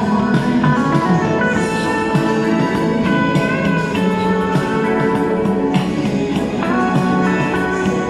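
Instrumental music with a steady beat, the intro of a song played before any singing comes in.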